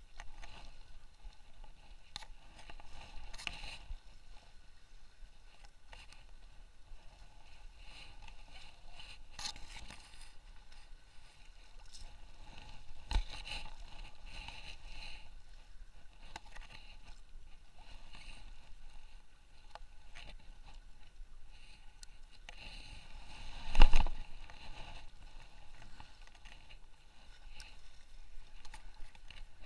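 Gentle water lapping and sloshing, with scattered small clicks and knocks from handling fishing tackle. There is a sharp knock about 13 seconds in and a louder thump around 24 seconds in.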